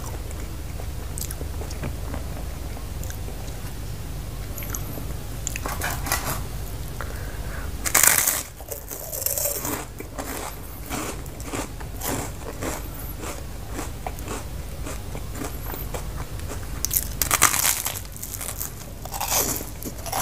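Close-miked biting and chewing of toasted garlic bread, with sharp loud bites about eight seconds in and again near the end, softer chewing between, over a steady low hum.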